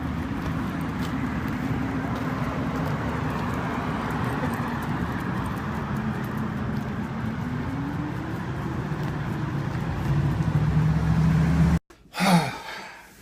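Road traffic: a motor vehicle's engine running over steady road noise, its pitch rising slowly partway through, until the sound cuts off abruptly near the end.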